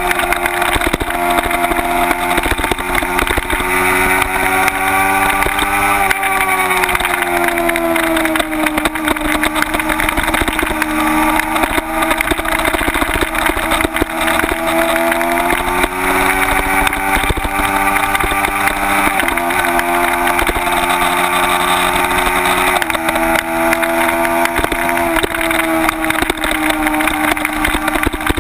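Kawasaki Ninja 250's parallel-twin engine ridden hard, its pitch rising and falling with the throttle, sinking under braking and jumping abruptly a couple of times as gears change. Steady wind rush on the bike-mounted microphone.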